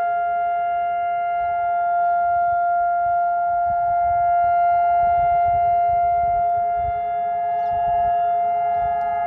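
Civil-defence siren sounding Israel's steady memorial tone for Holocaust Remembrance Day. It holds one pitch with no rise or fall, over a low rumble.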